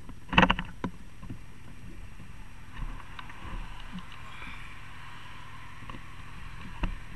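Handling knocks on a helmet-mounted camera as a hand touches the helmet, the loudest about half a second in, followed by a few lighter clicks, over a steady low rumble. A car passes about three to five seconds in.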